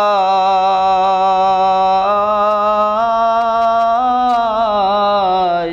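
A man singing a Bengali Islamic devotional song (gojol) unaccompanied, holding out the last syllable of a line as one long wavering note. It rises a little about four seconds in, then falls and breaks off near the end.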